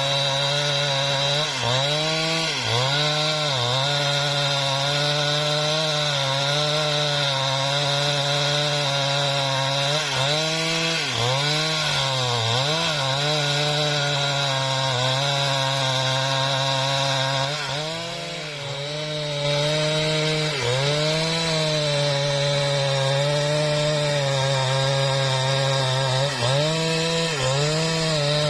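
Husqvarna 395XP two-stroke chainsaw running at full throttle while ripping lengthwise through mahogany. The engine pitch dips again and again as the chain bogs under load and then recovers, with a short dip in level about 18 seconds in.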